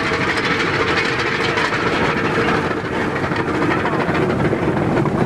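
Steady, loud rushing of surf and wind on the open beach, with the rumble of the horse-drawn lifeboat carriage being hauled into the shallows.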